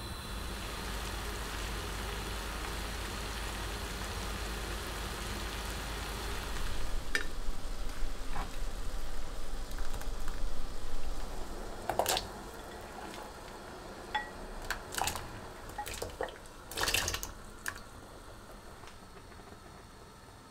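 Pot of water heating on the stove with a kelp-and-anchovy stock pack in it, a steady hiss for the first several seconds, then louder, uneven bubbling and splashing as the pack is lifted out. A few short, sharp clicks follow, the loudest about two-thirds of the way in.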